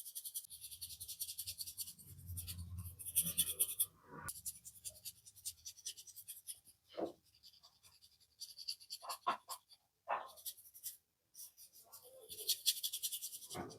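Hands rubbing and scratching fast through a customer's hair in a head massage: a dense, rapid, scratchy rustle in several runs with short breaks, and a few soft knocks near the middle.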